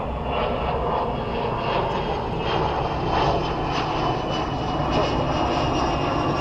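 A steady engine drone with no sudden sounds.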